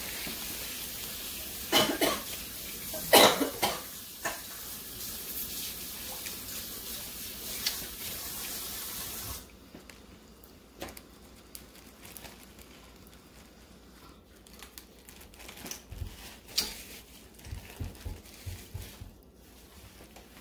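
Water running from a tap into a sink, a steady hiss that cuts off abruptly about nine seconds in, with two loud coughs two to three seconds in. After that come faint clicks and crunches of seafood shells being pulled apart by hand.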